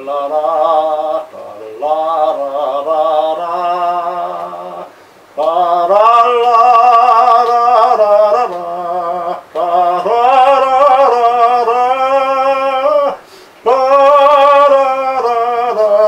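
A man singing an army battery song's melody unaccompanied on "la" syllables, in several long-held phrases with short breaks for breath.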